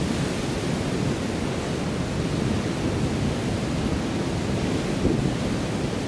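Wind buffeting an outdoor microphone: a steady, rough rushing noise, heaviest in the deep range.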